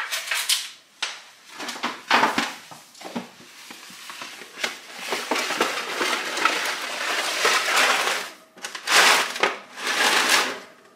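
Handling noise of a seed tray in a disposable aluminium pan being carried and slid onto a wire shelf: rustling and crinkling, thickest in the middle, with a few sharper scrapes near the end as it is set down.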